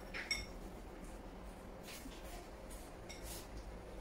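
Chopsticks clinking against a porcelain rice bowl: a sharp ringing tap about a third of a second in and a lighter one near the end.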